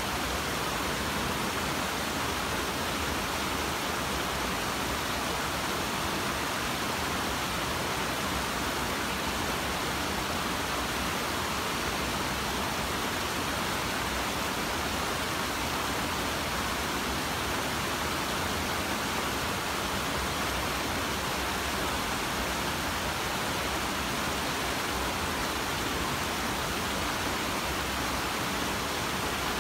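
Mountain stream rushing over rocks and small cascades: a steady, even rush of water with no breaks.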